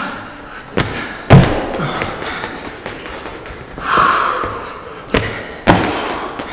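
Training shoes thudding onto a rubber gym floor as two people jump forward and shuffle back, several landings with the loudest about a second and a half in. A heavy exhale about four seconds in.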